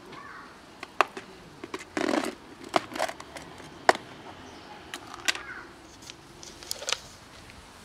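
Clip-lock plastic food container being opened: its latch flaps snap in a series of sharp clicks, with a short rattle about two seconds in.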